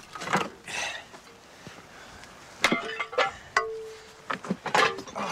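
Pieces of old roofing being pulled off and handled, clinking and knocking together: a run of sharp knocks, several with a short ringing tone, clustered at the start, around the middle and near the end.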